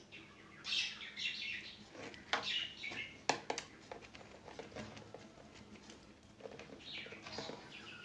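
Small birds chirping in the background, with a few sharp clicks and rustles from wires and a plastic connector being handled, the loudest click a little past the middle.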